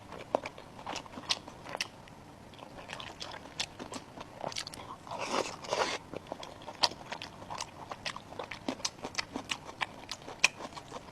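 A person biting and chewing food close to the microphone: crisp crunches and small wet clicks, with a longer, louder stretch of crunching about five seconds in.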